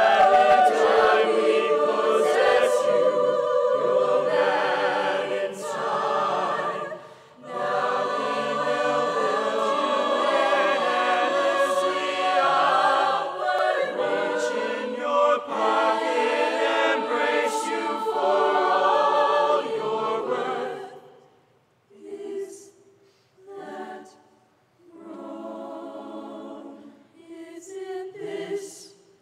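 A choir singing in full voice; about two-thirds of the way through the sound thins to quieter, separate phrases with short gaps between them.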